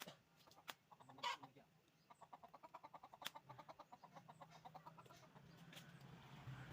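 Faint fowl clucking: a fast run of short notes, about ten a second, lasting a few seconds, over a low steady hum that grows toward the end, with a few scattered clicks before it.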